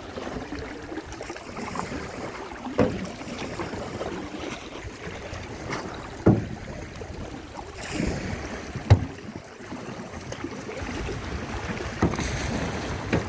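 Canoe paddle strokes dipping and pulling through flat water, with water washing along the canoe's hull and a little wind on the microphone. Four sharp knocks come about three seconds apart.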